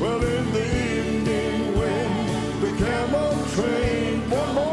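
Live gospel band music from piano, organ and drums, with a melody line that bends and glides over the chords.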